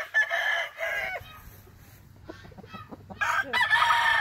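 Rooster crowing twice: one crow in the first second, and a second starting about three seconds in and running on past the end, with fainter short calls between them.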